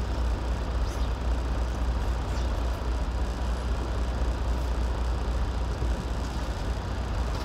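Vehicle engine idling, a steady low rumble heard from inside the cab.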